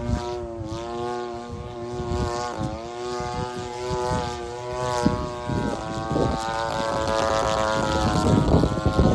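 30cc two-stroke gasoline engine of a radio-controlled Extra 300 model plane running at speed, its propeller note dipping briefly in pitch a couple of times, then holding steady and growing louder near the end.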